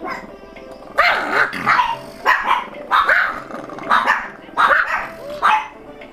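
A small dog barking: a rapid run of sharp barks, about two a second, starting about a second in, over faint background music.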